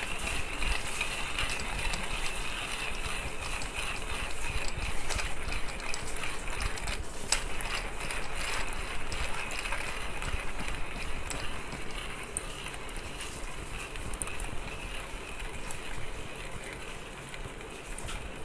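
Timemore Chestnut C2 hand coffee grinder being cranked steadily, its steel conical burrs crunching coffee beans at the finest grind setting. The grinding gets quieter over the last few seconds as the last beans pass through and the grinder runs empty.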